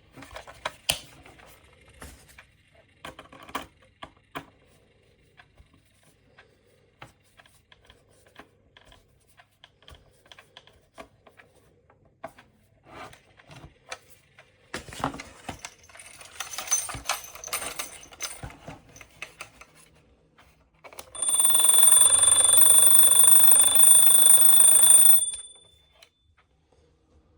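Wallace & Gromit marble-powered alarm clock: small clicks and rattles of its mechanism, then near the end its alarm rings loudly for about four seconds and cuts off.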